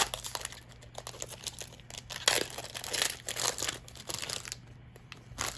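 Magic: The Gathering booster pack wrappers crinkling and tearing as a pack is opened and the wrapper handled, in irregular crackly bursts, the loudest a little over two seconds in.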